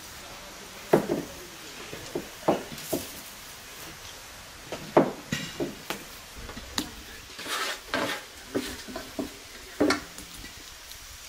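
Bread dough being handled on a floured wooden table: irregular soft thumps and knocks as it is pressed and dropped onto the wood, the loudest about a second in, in the middle and near the end, with brief scraping in between.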